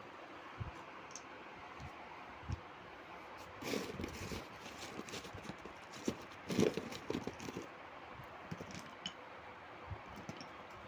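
Light knocks and clatter of objects being handled and set down, with two busier bursts of clatter about four seconds in and again about six and a half seconds in, over a steady hiss.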